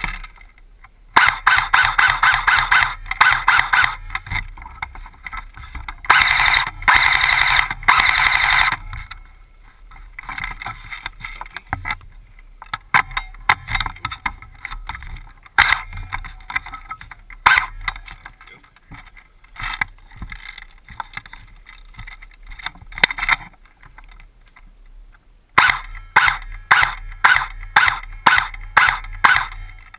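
Upgraded Tokyo Marui M14 airsoft electric gun (AEG) firing: rapid full-auto bursts in the first third, scattered single shots through the middle, and a string of shots about two a second near the end.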